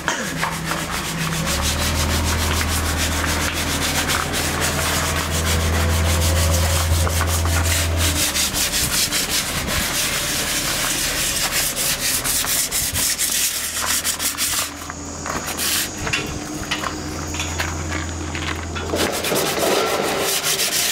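Hand-sanding a fibreglass boat hull by hand: quick, repeated scratchy strokes. A low steady hum sits underneath during the first part and again near the end.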